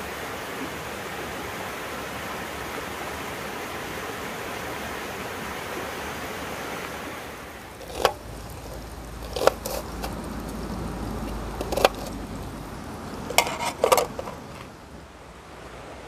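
Shallow mountain stream running over rocks with a steady rushing. About eight seconds in it falls away, and a few sharp clicks and clatters follow as camp cookware and food packaging are handled.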